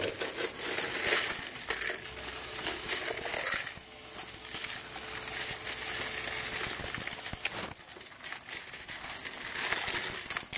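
Loose pennies and silver coins clinking and sliding in a continuous clatter as a hand pushes them from the tray into a coin-counting machine, dipping briefly twice.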